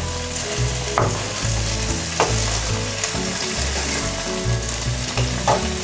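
Chopped tomatoes and green onion sizzling in hot oil in a kadai, stirred with a spatula, with a few brief scrapes.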